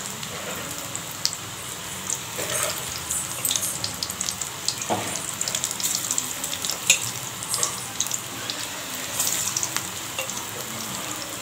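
Soya-chunk and egg bonda batter deep-frying in hot oil in a kadai: a steady sizzle with frequent sharp crackles and pops.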